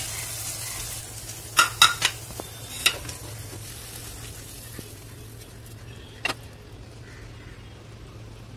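A spatula scraping and clacking against a frying pan as cooked okra is scooped out onto a plate. There are a few sharp knocks about one and a half to three seconds in and one more near six seconds. Under them, the oil's sizzle fades away because the gas flame has just been turned off.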